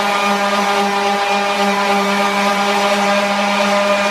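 Handheld electric sander running at a steady, constant-pitched hum as it sands a painted wooden panel back to bare wood.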